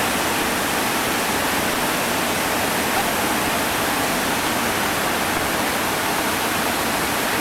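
Whitewater rapids at high water, rushing as a steady, even noise with no breaks.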